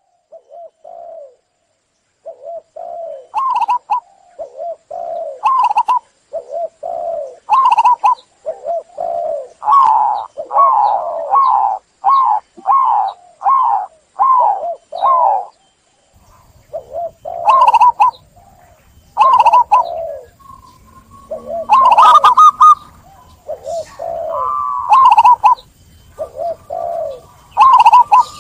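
Zebra dove (perkutut) cooing: a long series of short, rolling coo phrases, coming about once a second through the middle.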